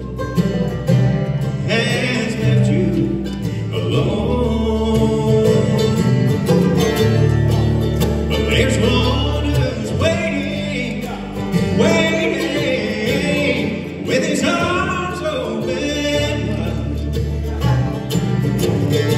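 Bluegrass band playing: banjo, mandolin, acoustic guitar and bass guitar together in a steady, full mix.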